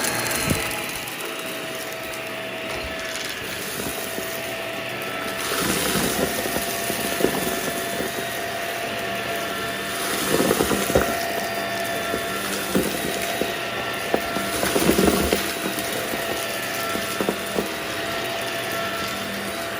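Vacuum cleaner running steadily with a constant motor whine, picking up spilled chips, with louder rough bursts about ten and fifteen seconds in.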